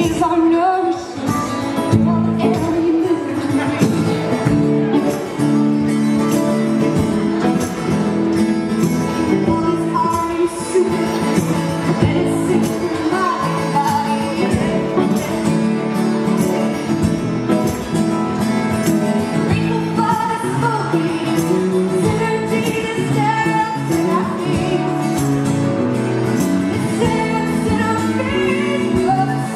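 Live acoustic duo of a steel-string acoustic guitar and a banjo playing a plucked, finger-picked song, with a woman singing over it.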